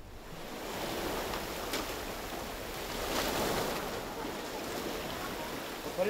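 Sea surf washing and foaming over shore rocks, a steady rush that swells about three seconds in.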